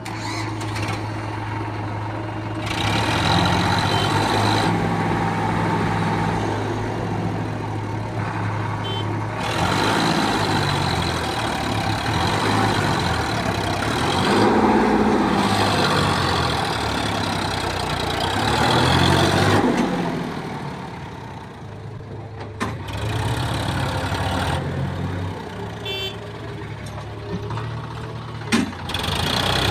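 Heavy diesel engine running, revving up with a loud working noise for long stretches and dropping back toward idle about two-thirds of the way through, with a sharp knock near the end.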